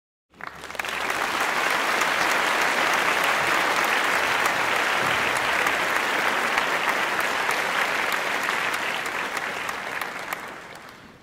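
Crowd applauding: dense, steady clapping that swells in just after the start and fades away near the end.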